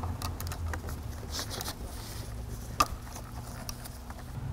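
Scattered light clicks and taps of a hand tool and gloved hands working on a heat shield in a car's engine bay, over a low steady hum. The sharpest click comes a little before three seconds in.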